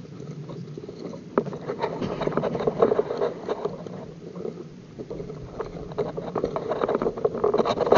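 ATV engine idling with a steady low hum, while irregular clicks and crackles come and go over it from about a second and a half in.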